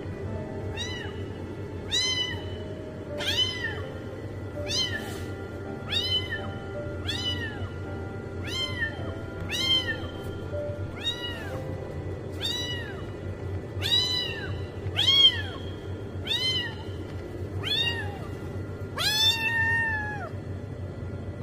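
Orange-and-white kitten meowing over and over, high-pitched cries that rise and fall, about one a second. The last cry, near the end, is longer and drawn out.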